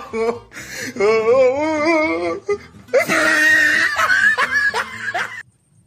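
A human voice in loud, drawn-out, wavering cries and laughter that cut off abruptly near the end.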